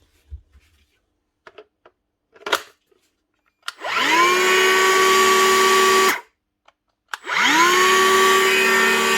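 Milwaukee M18 cordless planer's motor and cutter head spinning up with a quickly rising whine, running steadily for about two seconds and stopping, then started again a second later. It runs freely, with its failed motor bearing replaced. A few faint clicks of handling come before the first run.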